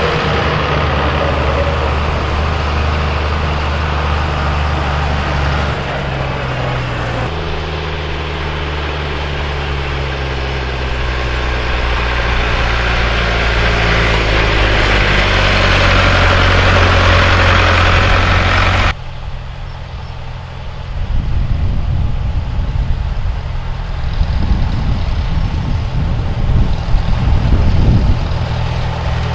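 Vintage farm tractor engines running steadily. About two-thirds of the way through the sound changes suddenly to a rougher, uneven low rumble.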